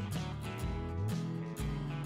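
Background music: a strummed guitar tune with a steady beat.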